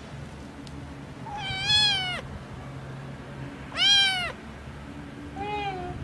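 Orange tabby kitten meowing three times, each meow rising then falling in pitch; the third is shorter and quieter.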